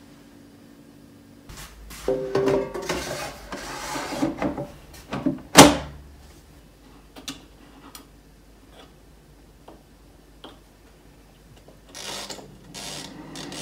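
A Récolte air fryer's basket is handled and pushed into the machine, shutting with one loud clack about five and a half seconds in. Near the end the timer dial is turned and the fryer's fan starts running steadily.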